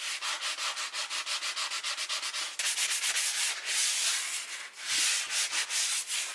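Foam-backed sanding pad, about 200 to 400 grit, rubbed back and forth over a leather steering wheel rim: a light scuff-sanding that gives the leather a surface for dye to grip. It starts as quick, short, even strokes and changes to longer, slower strokes about two and a half seconds in.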